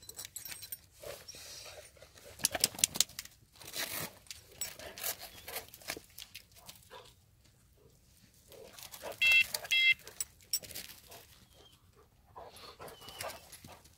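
Collar straps and buckles rustling and clicking as a GPS tracking collar and a beeper collar are fastened on a dog, with two short electronic beeps about half a second apart a little past the middle.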